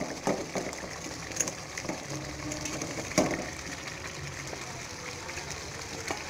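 Gravy bubbling at the boil in a non-stick pan as pieces of fried chicken are dropped into it, with scattered clicks and a sharp knock about three seconds in.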